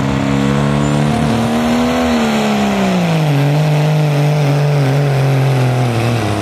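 A vehicle engine running hard at high revs. Its pitch climbs for about two seconds, then drops and holds lower, as if the engine is bogging under load.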